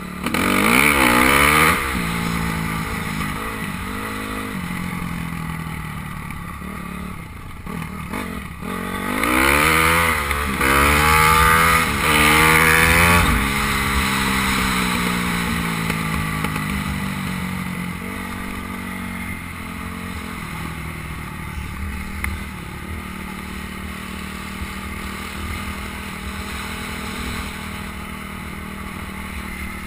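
A 250 cc motocross bike's engine accelerating hard through the gears, with repeated rising sweeps in pitch just after the start and again about nine to thirteen seconds in, then running at a steadier, slowly falling note while cruising.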